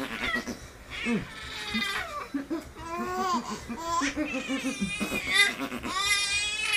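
Baby laughing while being played with: a run of quick short laughs, then long high-pitched squealing laughs near the end.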